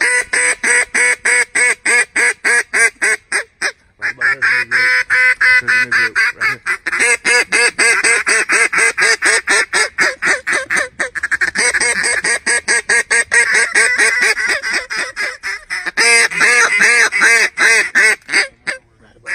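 Mallard duck call blown in a long run of rapid quacks, several a second, with a few short pauses.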